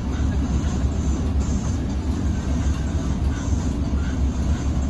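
City bus engine running at low speed, heard from inside the cabin as a steady low rumble, with the hiss of heavy rain and wet road under it.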